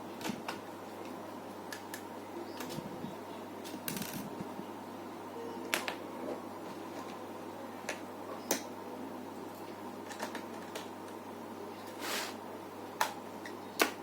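Small, irregular clicks and taps of screws, a screwdriver and plastic and metal laptop parts being handled during reassembly of the hard drive, about ten in all, the sharpest near the end. A steady low hum runs underneath.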